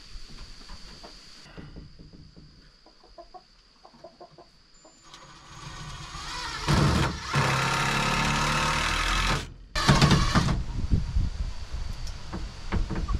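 Chickens clucking and calling close by, loudest in a stretch of several seconds past the middle that is broken by a sudden short dropout.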